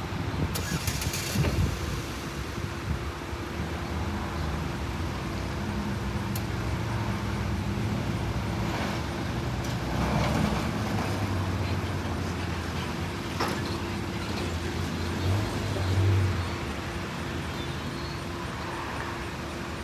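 Steady low rumble of road traffic, swelling slightly twice, with a few brief clicks.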